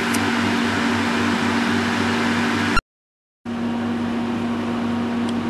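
Extraction fan running steadily, an even hiss with a low hum. The sound cuts out completely for about half a second just past the middle, then comes back unchanged.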